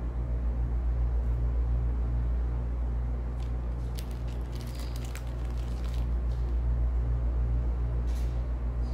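Steady low throbbing hum of machinery running in the workshop. Over it come light rustles and clicks about four to six seconds in, and once more near the end, as small seal parts are handled on the engine block.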